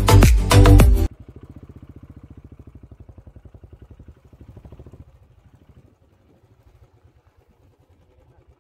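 Background music cuts off about a second in. A faint engine follows, running with a quick even beat for about four seconds, then dies away to near silence.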